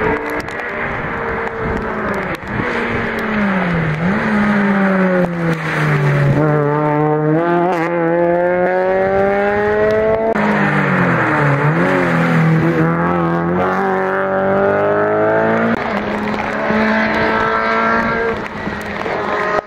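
Rally car engine working hard on a stage: the revs dip as it slows, then twice climb steeply and drop suddenly at a gear change as the car accelerates away.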